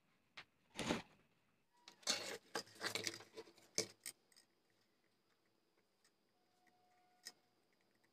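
Handling noises from a plastic lamp housing and wires on a tabletop: a couple of clicks, then a burst of rustling and light clattering as the lamp body is picked up and turned, and a single click near the end.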